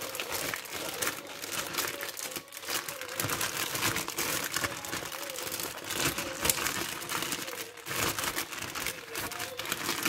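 A thin plastic bag crinkling and rustling as hands work a ball of dough out of it.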